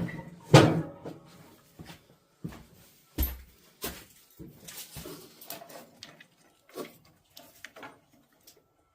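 Scattered knocks and clicks of hand work, with one louder, longer sound about half a second in and a sharp low thud a little after three seconds.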